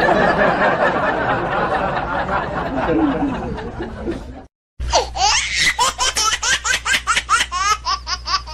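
Two laughing sound effects, one after the other. The first is many overlapping voices laughing together for about four and a half seconds and stops abruptly. After a short break, a single voice laughs in quick, evenly repeated bursts, about three a second.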